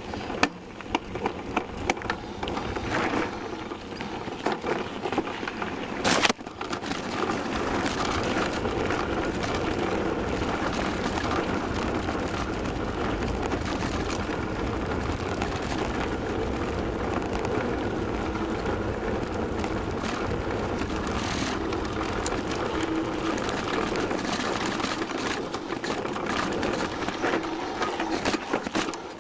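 Downhill mountain bike ridden down a dirt trail, heard from a camera mounted on its fork: irregular knocks and rattles at first, one sharp loud knock about six seconds in, then a steady rushing noise of tyres and wind with constant rattling of the bike.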